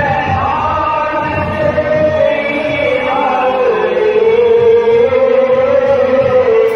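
Men's voices chanting a Muharram Salaam (marsiya) in praise of Imam Hussain: a slow, melodic devotional recitation. One long note is held through the second half.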